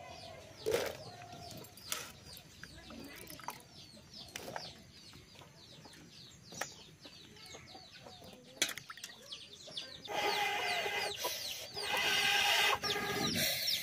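Hands splashing in a steel bowl of water as chopped papaya is rinsed, with hens clucking and small birds chirping. About ten seconds in, a much louder breathy blowing starts in two long puffs: air blown through an iron blowpipe to fan a wood fire in a clay stove.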